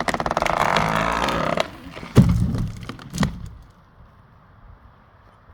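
Chainsaw running at high speed, then dropping off about a second and a half in, followed by two heavy thuds about a second apart.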